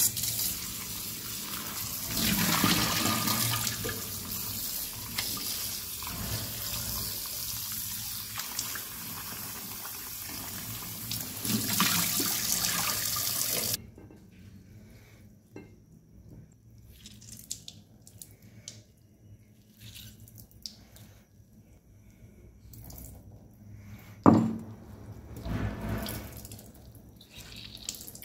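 Kitchen tap running steadily into a bowl of pickled mustard greens in the sink, shut off suddenly about halfway through. Then quiet wet handling as the greens are squeezed by hand, one sharp thump, and the rinse water poured out of the bowl into the sink near the end.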